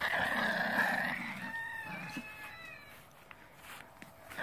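A rooster crowing once: a harsh opening that settles into a held, pitched note, ending about three seconds in.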